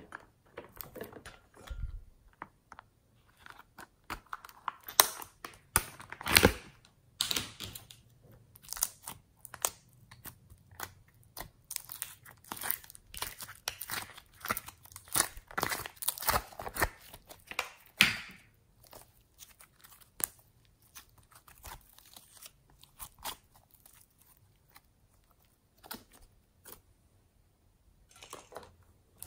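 Soft slime being scooped out of a plastic compartment tray and pressed into a glass bowl: irregular squishing and crackling with sharp clicks and taps of plastic, the loudest bursts about five to six seconds in and again near eighteen seconds, quieter toward the end.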